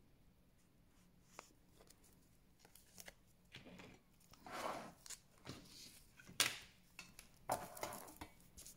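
Clear plastic sleeves and card packaging of nail stamping plates and sticker sheets being handled, with short rustles and crinkles and small taps as the packs are set down on a table. It is quiet for the first few seconds, then busier, with one sharp tap a little past the middle.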